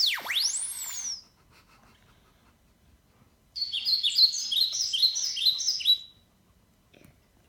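Recorded bird-chirp sound effect played back from a sound-effects board: a rapid run of high chirps starting about three and a half seconds in and lasting about two and a half seconds. It opens with the end of a whistling sound effect that slides up and down in pitch for about a second.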